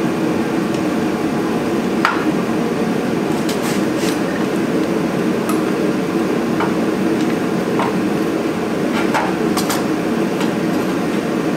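Scattered sharp metal clinks and taps, about nine in all, as a road draft tube is worked loose and pulled off an engine by hand and with tools, over a steady loud background hum.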